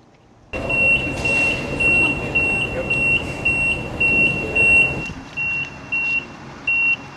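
Forklift warning beeper sounding about twice a second over a loud rumble of machinery; the rumble drops away about five seconds in while the beeping carries on.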